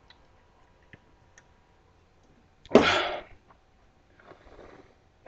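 A man lets out one short, sharp, breathy blast of air about three seconds in, followed about a second later by a fainter breath, with a few light clicks before it.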